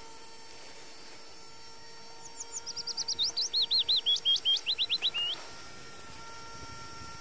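A songbird sings a quick run of about twenty whistled notes lasting some three seconds, starting about two seconds in. The run steps down in pitch and grows louder as it goes.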